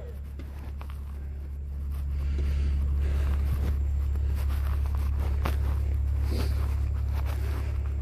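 Fire engine's engine running at idle as a steady low hum, growing louder about two seconds in, with scattered footsteps in snow.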